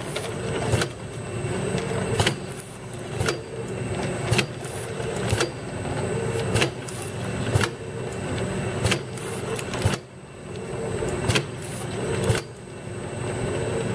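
CX-LT automatic labeling machine for glass dropper bottles running, its motor and conveyor giving a steady hum with a faint high whine above it. A sharp click comes about once a second as the machine cycles.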